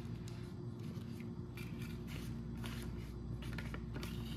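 Crinkling and light scraping of plastic: a small plastic spoon scooping candy mix from a plastic tray into a plastic squeeze bag, in short scratchy strokes every second or so over a steady low hum.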